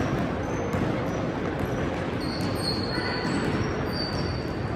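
Youth basketball game in a gym: a ball bouncing on the court and short, high sneaker squeaks over a steady hubbub of spectators and players echoing in the hall. The squeaks come mostly in the second half.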